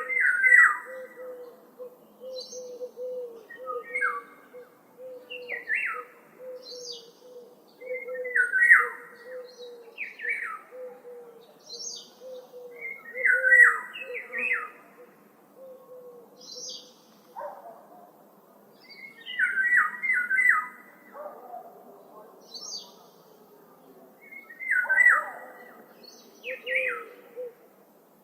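Songbirds singing: short, bright chirping phrases come every second or two. Under them runs a steady string of low, repeated notes about twice a second.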